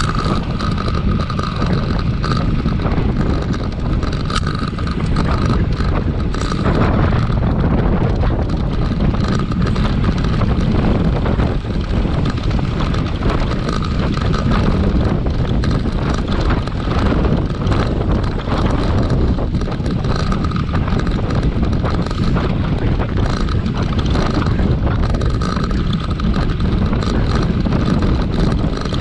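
Wind buffeting the microphone, a steady loud rumble, with the faint hum of a bicycle race going on beneath it.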